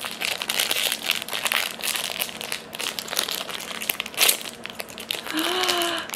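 A foil blind-bag wrapper around a Sonny Angel figure crinkling and crackling as it is pulled and torn open by hand. The crackles come in a quick, uneven run, with one sharper crackle about four seconds in.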